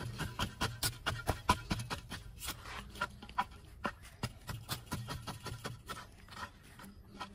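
A digging tool striking and scraping into dry, lumpy soil, knocking clods loose, in a run of quick strikes that thins out after about two seconds.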